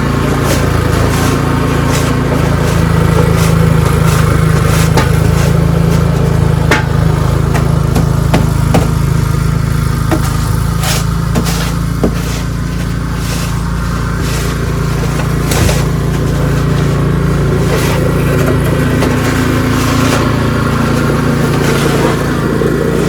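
Ariens 624E snowblower's gasoline engine running steadily under load while clearing snow. Scattered sharp ticks and knocks sound over the engine.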